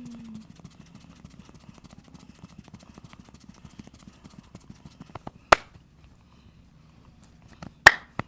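Massage percussion: fast, light hand taps and pats on the body, then two loud sharp cracks, about five and a half seconds in and near the end.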